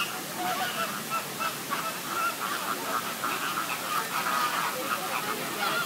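A flock of waterbirds calling over one another: a steady, dense chatter of many short, overlapping calls.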